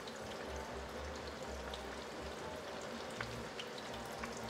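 Hot oil sizzling steadily around panko-breaded fish pieces deep-frying in a pan, with many small crackles. The oil is running hotter than 400°F.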